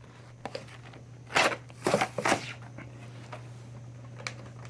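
Plastic toy packaging being handled, giving a few short crinkles and rustles, the loudest a little over a second in and around two seconds in, over a steady low hum.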